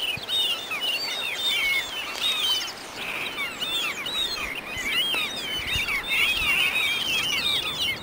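A dense chorus of small birds chirping and twittering, many quick high chirps overlapping without a break.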